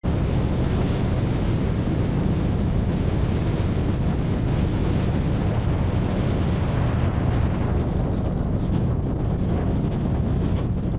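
Strong wind blowing across the microphone: a steady, dense rush, heaviest in the low rumble.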